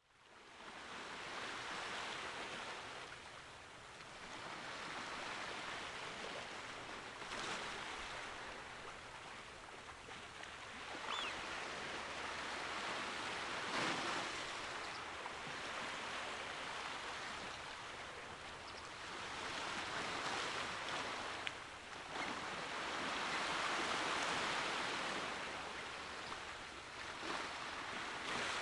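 Small waves washing against a rocky shore, the wash swelling and fading every few seconds, with a few faint splashes.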